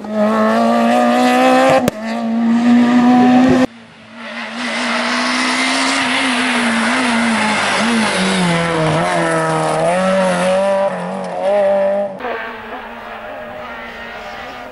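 Renault Clio R3 rally car's four-cylinder engine revving hard, its pitch climbing, dipping about eight seconds in and climbing again as it drives through corners. The sound cuts abruptly between clips, and after the last cut, near the end, the car is quieter and farther off.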